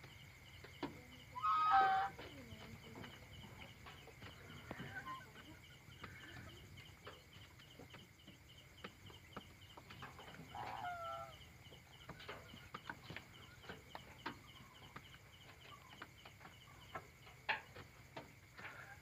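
Domestic chickens settled on their roost at night giving a few short, soft calls: the loudest about two seconds in, another around eleven seconds. Small clicks and rustles are scattered between the calls.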